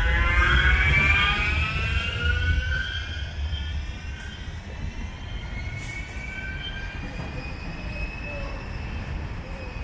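Bombardier M5000 tram pulling away from the platform, its traction-motor whine rising in pitch as it accelerates over a low rumble. The sound fades over the first few seconds as the tram leaves, and a fainter steady whine carries on.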